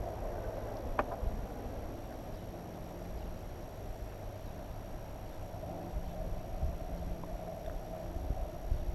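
Low steady outdoor rumble, with one light click about a second in and a few faint ticks as small plastic mounting parts are handled.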